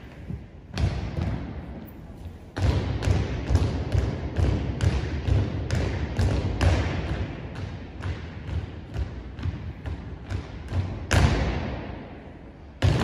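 Drill squad's boots striking a gymnasium's wooden floor in step: a steady beat of footfalls ringing in the hall, with heavier stamps in unison about a second in, near three seconds in and twice near the end as the squad halts and forms up.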